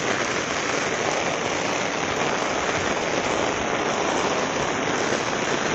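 Heavy rain pouring down on tiled roofs and bare ground, a steady loud hiss.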